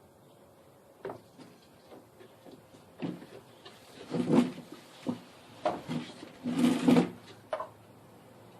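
Handling noise from fitting a rubber radiator hose and its clip: a single knock about a second in, then a run of knocks, scrapes and rubbing from about three seconds in, loudest around the middle and again near seven seconds.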